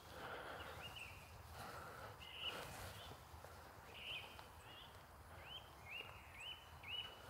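A small bird calling faintly: one short, high note, sliding up and then held, repeated a few times at first and then about twice a second in the second half.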